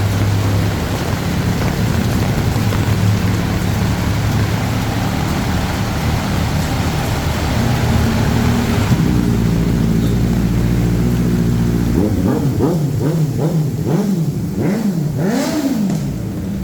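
A car engine running in deep floodwater, over a steady hiss of heavy rain and water. Its pitch shifts a little past halfway, and near the end it rises and falls repeatedly as it revs.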